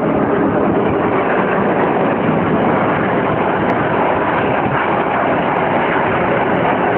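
Steady, loud roar of jet aircraft engines, an even rushing noise with no break.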